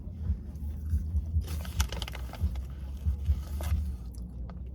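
Someone chewing crunchy salt-and-vinegar chips, with a crackly crunching stretch in the middle and soft low thuds throughout.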